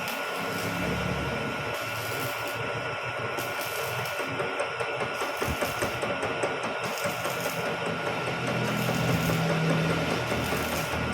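Vertical milling machine running steadily, its motor giving a constant whine over an even mechanical noise.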